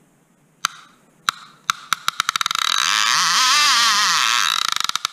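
A few single sharp knocks, then clicks that speed up into a continuous buzzing rattle with a wavering pitch, which slows back into separate clicks near the end.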